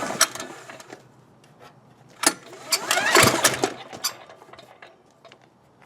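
ETQ DG7250LE single-cylinder diesel generator being cranked by hand with its recoil starter rope. A hard pull about two seconds in spins the engine up with a rising whir and a sharp clack, then it coasts down without firing, because its fuel valve is shut off.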